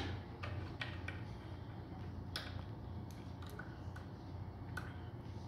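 Scattered light metallic clicks and ticks as a hex key is worked into the stroke adjuster of an HHS DDL cold glue head to unlock its set screw, over a steady low hum.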